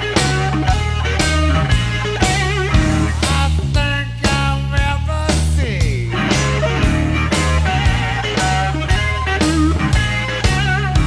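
Blues-rock band playing an instrumental passage: an electric guitar lead with wavering, bent notes and a downward swoop about six seconds in, over bass and drums keeping a steady beat.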